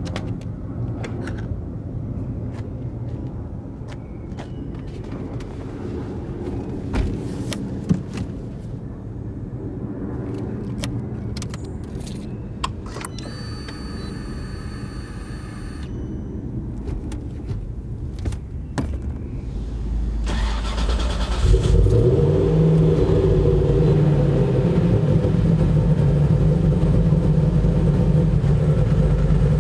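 Mercury Racing SB4 DOHC V8 in a 1970 Cuda starting about two-thirds of the way through, revving briefly and settling into a loud, steady idle. Before it starts there is a low rumble with scattered clicks and a short steady tone.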